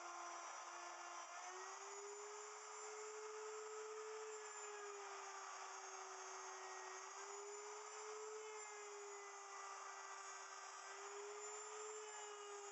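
Wood router on a router milling machine running and cutting cedar, a steady motor whine whose pitch sags and recovers slightly as the bit loads up and eases off the cut.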